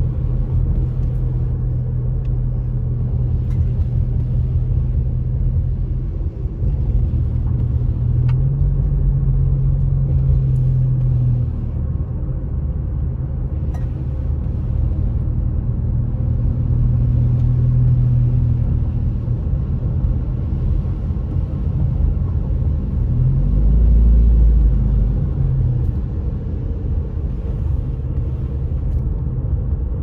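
Car engine and tyre rumble heard from inside the cabin while driving on a snow-dusted road. The engine note rises and falls a few times, most strongly about 24 seconds in.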